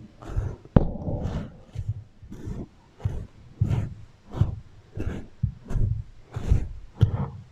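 Beeswax wrap crinkled and rubbed against a microphone in a regular series of short rustling strokes, a bit under two a second, with an echo effect on the sound. A sharp click comes about a second in.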